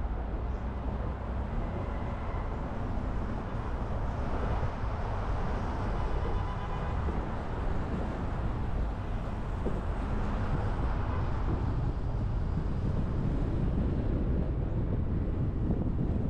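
Steady city traffic and road noise of a car driving: a low rumble of engine and tyres, with a brief faint high tone about halfway through.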